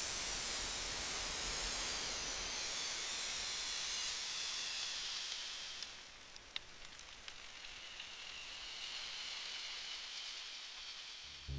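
A steady hiss, louder for the first six seconds and then fainter, with a couple of faint clicks a little past the middle.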